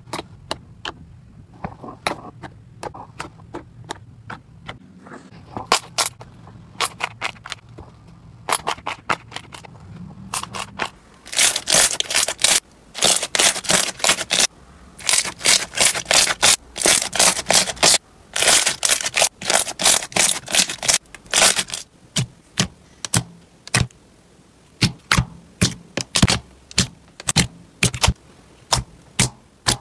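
Hands kneading and squishing slime, making a string of sharp clicks and crackling pops. They are sparse and quieter at first, come thick and loud through the middle, and thin out again near the end.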